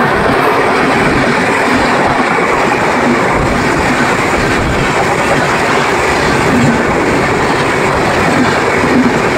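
Indian Railways train running on the track: a loud, steady rumble of wheels and carriages with some clickety-clack.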